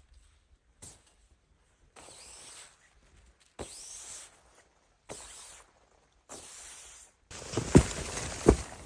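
Slow footsteps crunching in snow, about one step every second and a half. Near the end the crunching gets louder and runs together, with two heavier thumps.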